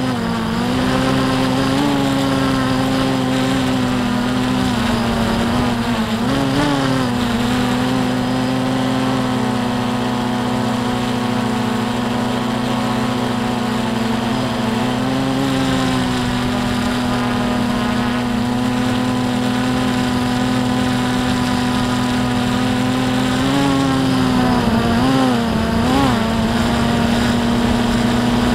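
Drone's electric motors and propellers heard from the drone's own onboard camera: a loud, steady hum whose pitch wavers briefly several times as the drone changes its flight.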